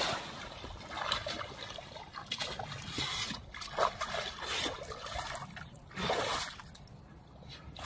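Shallow muddy water splashing and trickling in irregular bursts, stirred by someone wading and scooping it up in his hands.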